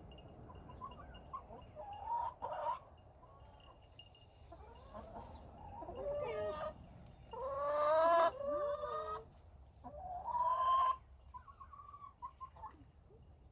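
Chicken squawking and clucking in a series of drawn-out calls, several falling in pitch, the loudest about eight seconds in.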